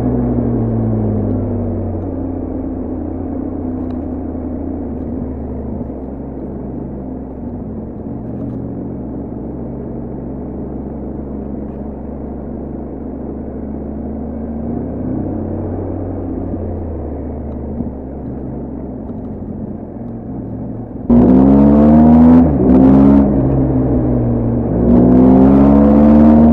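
BMW R1250GS Adventure's boxer-twin engine and exhaust. It eases off at the start and runs low and steady, then near the end opens up loudly with the pitch rising, breaks briefly for a gear change, and rises again.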